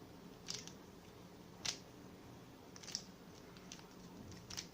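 Faint plastic clicks of a Rubik's cube's layers being turned, a twist roughly every second while the yellow-cross algorithm is carried out.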